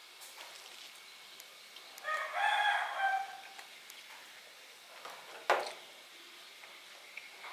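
A rooster crows once, about two seconds in, for about a second and a half. A single sharp knock follows about five and a half seconds in.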